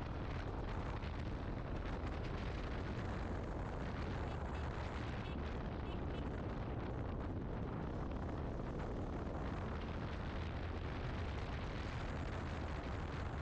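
Steady wind rumble over the microphone while riding a motorcycle, with the bike's engine and tyre noise underneath.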